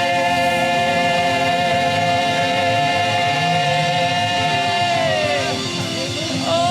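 Live gospel worship music: one long sung note, held steady for about five seconds, then sliding down and fading, over a sustained accompaniment.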